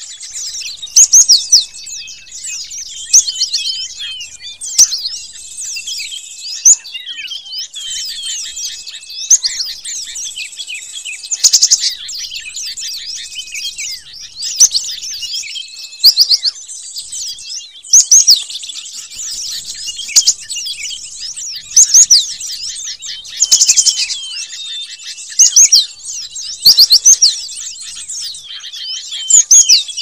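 Cinereous tit (gelatik batu) lure recording: dense, high-pitched chirping and chattering calls, with louder bursts of calls about every two seconds.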